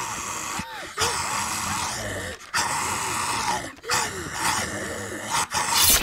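Guttural growling and groaning in harsh bursts, broken by short pauses about every second and a half, with a louder burst near the end.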